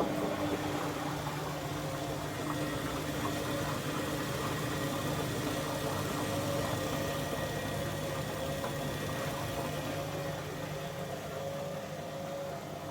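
Front-loading washing machine draining between rinses: the drain pump hums steadily as the water is pumped out. A faint wavering whine comes in after about two seconds.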